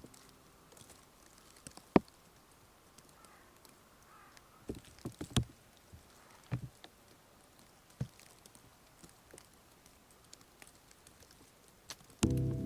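A few scattered sharp clicks and knocks over a quiet background, with a cluster of them about five seconds in.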